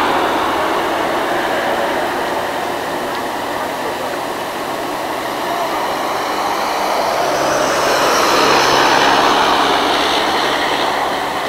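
Micro bus engine running with tyre and road noise as the bus passes, swelling louder about eight seconds in and easing near the end.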